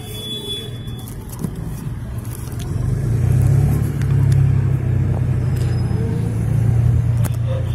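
A low steady rumble that grows louder about three seconds in, with a few light taps and scrapes from a corrugated cardboard parcel box being handled.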